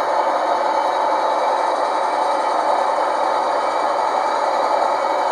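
Kiss gauge 1 (1:32) model of the SBB Be 4/6 electric locomotive running slowly with a goods wagon: a steady whirr of its motor and gearing mixed with the rolling and light clatter of metal wheels on the track.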